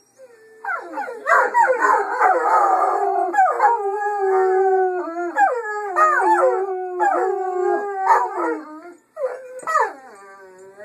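Dogs howling, long wavering howls that overlap and slide up and down in pitch, with a brief break about nine seconds in.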